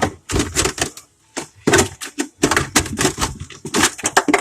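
Rapid, irregular clicking and knocking from work at the bottom of a refrigerator whose defrost drain is frozen shut and packed with ice, with a brief pause about a second in.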